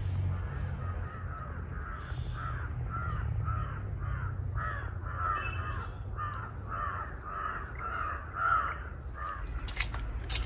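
Crows cawing in a rapid run of harsh calls, about two or three a second, that stops about nine seconds in. A few sharp clicks follow near the end.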